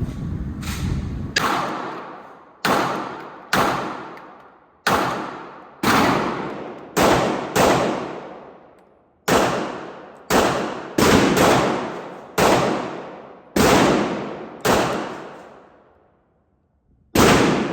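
About sixteen gunshots fired one at a time at an uneven pace, each followed by a long echoing decay. A low rumble sits under the first second or so.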